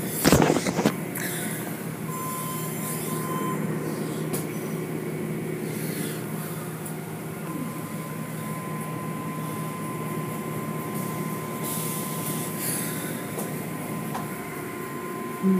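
Automatic car wash heard from inside the car: cloth brushes and mitter curtains swishing over the windshield and hood amid water spray and a steady machinery rumble. A loud hit comes about half a second in, and a thin steady whine joins about six seconds in.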